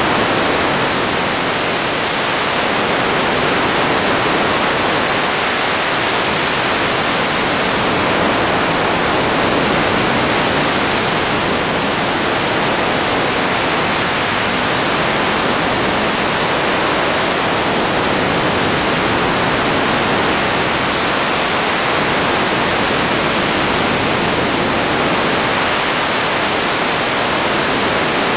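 Radio static: a steady, even hiss of noise with no tones or voices in it.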